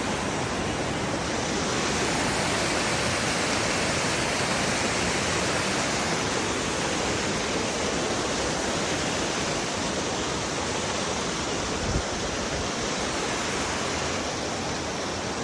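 Waterfall rushing: a loud, steady, unbroken wash of falling water, with one brief low bump about twelve seconds in.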